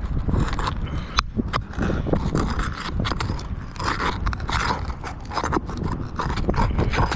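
A metal roofing tool scraping and prying against asphalt shingles in repeated irregular strokes as the shingles' seals are broken and fasteners are worked loose, with a sharp click about a second in.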